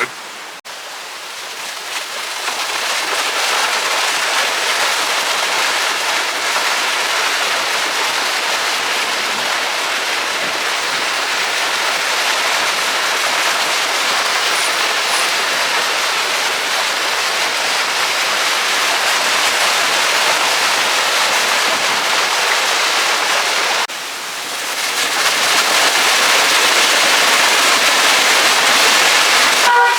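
Steady rushing of a mountain river's water, a loud even roar. It dips suddenly about 24 seconds in, then swells back up.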